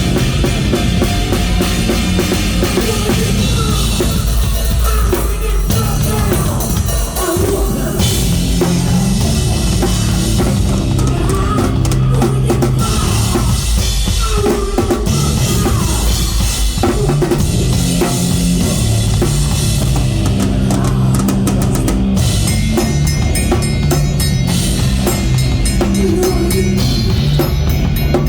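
Loud rock music driven by a drum kit, with bass drum and snare playing steadily and the texture shifting a couple of times.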